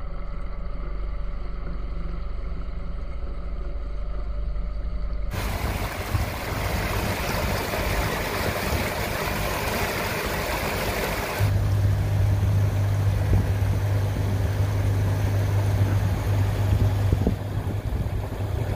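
Torqeedo Travel 1103C electric outboard running at full throttle on a jon boat, heard as a steady low hum with a faint whine. From about five seconds in, the rush and spray of water from the wake covers it, and from about eleven seconds in a strong, steady low hum returns under the rushing water.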